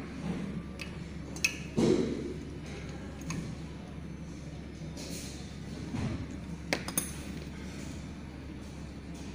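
Metal tool clicking and clinking against the metal body of an air compressor's pressure regulator as it is worked on by hand. A few scattered sharp clicks, the loudest about two seconds in and a close pair about seven seconds in.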